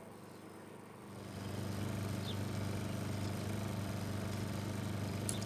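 A steady low hum, like an engine running, comes up about a second in. Near the end a recurve bow is shot: one sharp, loud snap of the string on release.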